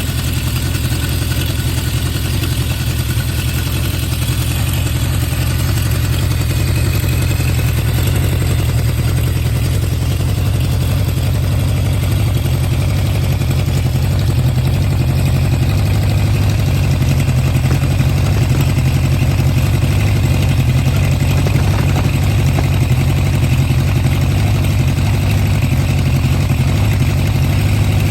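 Honda CB750 Four K3's air-cooled inline-four engine running steadily at idle through a baffle-modified HM341 exhaust, with no carburettor sneezes. Its carburettor float levels have been corrected, which is what cured the sneezing. It gets slightly louder about halfway through.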